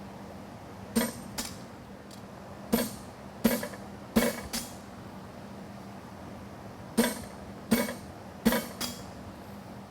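Hammer blows on a punch driving a nail hole through a hot steel horseshoe on the anvil: about ten ringing strikes in twos and threes with pauses between.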